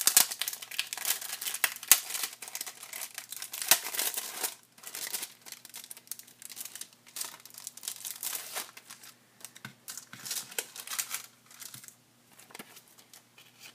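Clear plastic wrapper on a pack of origami paper crinkling as hands handle it, peel it open and pull the paper pack out, in irregular crackles with a few short pauses.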